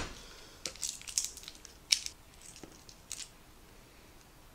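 Dry, papery garlic skins crackling as cloves are peeled by hand, in a handful of short, sharp crinkles over the first three seconds.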